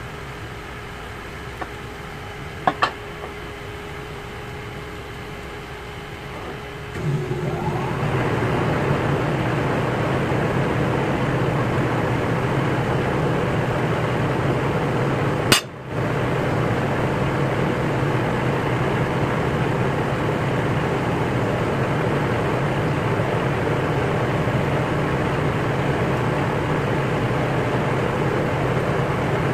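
A few light metal clicks of feeler gauge blades against a steel straight edge laid on a rotary engine's iron plate. About seven seconds in, a steady machine noise with a low hum starts up and keeps running, louder than the clicks, with one sharp click about halfway through.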